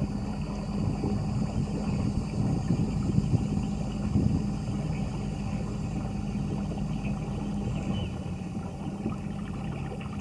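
Newport Vessels 55 lb thrust electric trolling motor driving a kayak at full power on its stock propeller: a steady hum over uneven low rushing noise.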